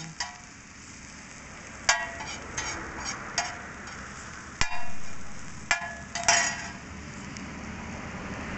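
Metal spatula scraping and striking a large flat iron griddle (tawa) as food fries on it, with seven or so sharp ringing clinks over a steady sizzle.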